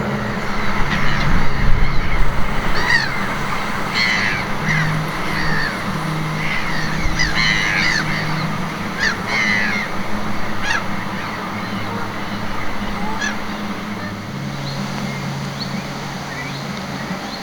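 A bird giving a series of harsh, rasping calls over steady wind noise, busiest in the first half and thinning out later.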